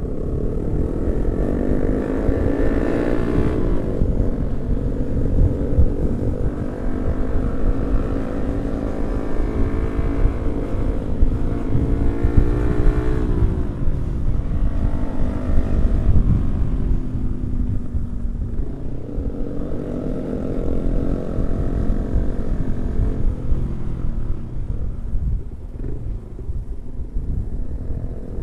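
Yamaha R15 V3 motorcycle engine running under way. Its pitch rises and falls several times as the rider works the throttle and gears, over a steady low rumble.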